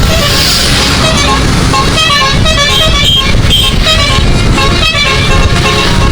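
Bus's 12-note Basuri telolet musical air horn playing a quick run of short notes at changing pitches, over a steady low rumble.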